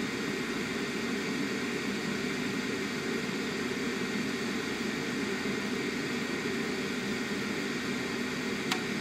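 Fume extractor fan running steadily with a rushing airflow noise, and a single light click near the end.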